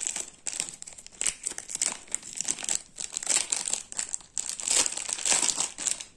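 Thin plastic packet crinkling and rustling as hands work it open, in irregular bursts of crackle.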